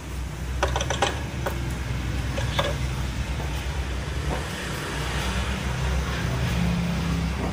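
Automatic scooter engine running steadily, with a few sharp clicks: a quick cluster about a second in and single ones later.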